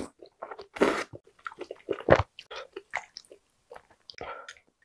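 Close-miked eating sounds: glass noodles and beef-rib soup slurped from a ladle, with a loud slurp about a second in, then a run of short, irregular wet chewing clicks and smacks.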